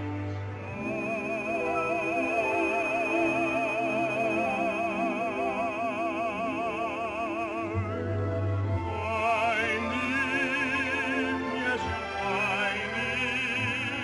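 Orchestral soundtrack music in an operatic style: a high melody note held with wide vibrato for several seconds, then the melody moves on about eight seconds in over a lower accompaniment.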